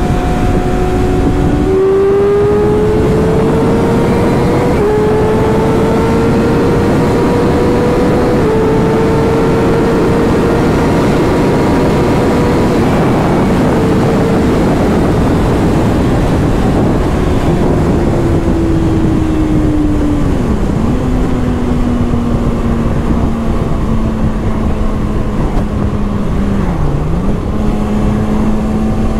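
Kawasaki sport bike's inline-four engine pulling hard with a rush of wind noise. The pitch climbs with gearchanges about five and eight seconds in and holds high to about halfway. It then falls away as the bike eases off and settles to a steadier, lower note, with two brief dips near the end.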